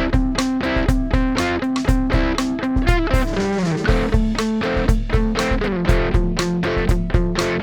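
Electric guitar playing a riff through an Xotic EP Booster pedal into a Vox MV50 AC amp, over a steady beat, with a slide down in pitch about three seconds in.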